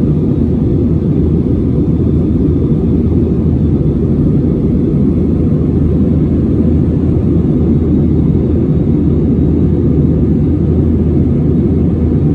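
Steady low rumble of an Airbus A320-family airliner in flight, heard inside the cabin from a window seat: jet engine and airflow noise, with a faint steady high whine over it.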